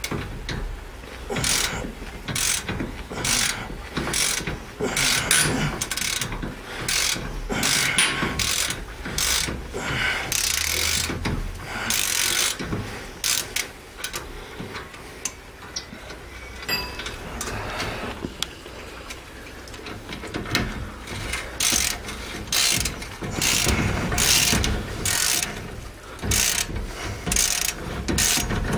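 Hand ratchet clicking in repeated strokes as it turns a Torx bit on a long extension, backing out a Torx 50 bolt that holds a rear wheel bearing. The strokes come about one or two a second, with a quieter pause past the middle.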